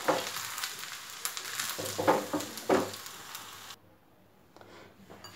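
Chicken and vermicelli filling sizzling in a frying pan while a wooden spoon stirs and scrapes it, with a few louder scrapes. The sound cuts off suddenly about three and a half seconds in, leaving faint quiet.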